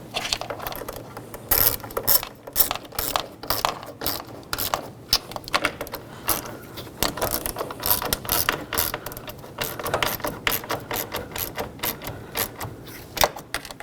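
Hand ratchet clicking rapidly in quick uneven runs as it spins the tow mirror's mounting nuts down onto their studs.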